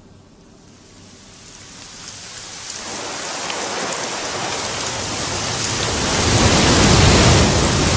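Heavy rain fading in from quiet and building steadily into a loud downpour.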